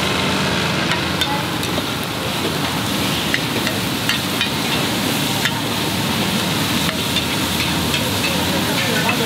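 Food sizzling in a large wok on a hawker's cart, with a metal spatula scraping and clicking against the pan many times as the cook turns it.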